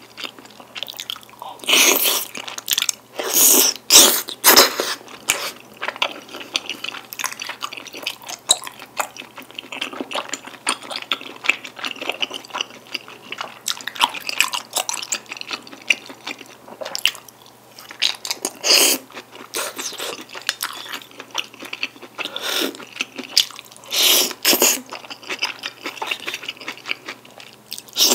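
Eating sounds: wet, sticky chewing and mouth smacking on chewy rice cakes and wide glass noodles in black bean sauce, with dense small clicks. Several louder bursts of about half a second each, slurping the food in, come near the start and again in the second half.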